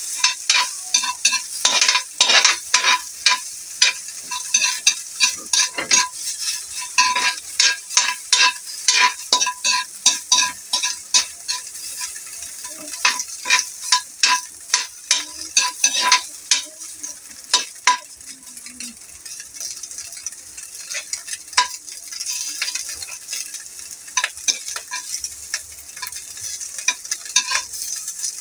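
Metal spatula scraping and tapping around a bare metal wok as small pieces of pork fat are stirred, each stroke with a brief metallic ring. A light sizzle runs underneath as the fat renders out its oil. The strokes come quickly for the first two-thirds, then thin out.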